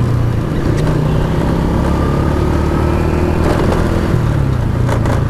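Honda Wave underbone motorcycle's small single-cylinder four-stroke engine running steadily while riding, its engine note shifting slightly about four seconds in.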